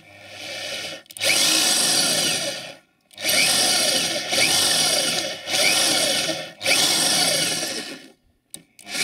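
Electric drill boring a steel twist bit into the end of a UAZ Patriot's windscreen-wiper pivot shaft, whose threaded end has rusted off, to make a hole for tapping an M6 thread. The drill runs in about four bursts of one to two seconds each with short stops between them, then stops about a second before the end and starts briefly again.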